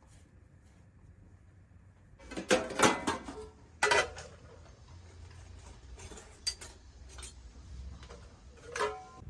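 Metal pots and dishes clattering and clinking: a burst of loud clattering a couple of seconds in, another knock at about four seconds, then a few lighter clinks with a short ring.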